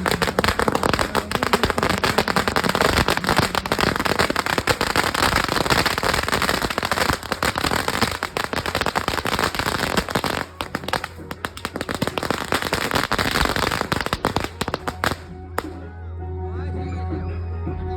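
Multi-shot fireworks cake (Supreme 120-shot) firing a rapid, continuous barrage of bangs and crackles, which stops about fifteen seconds in.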